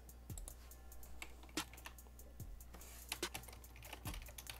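Faint computer keyboard typing: irregular, uneven keystrokes as a short line of text is typed, over a low steady hum.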